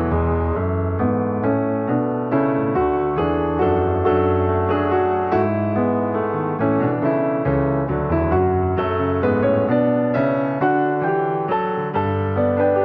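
Piano music: notes struck one after another over held low bass notes.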